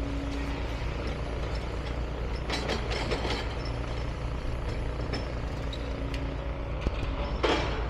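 Heavy diesel machinery on a demolition site running with a steady low rumble, with a cluster of knocks and clatters about three seconds in and a short, loud burst of noise near the end.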